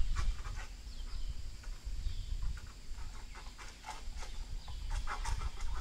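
Short, irregular animal calls or chirps over a steady low rumble, like wind on the microphone.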